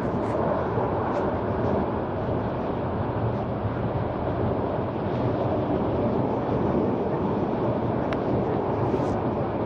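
Steady rumble and rush of a Guadalajara light-rail car running, heard from inside the crowded passenger car, with a single faint click near the end.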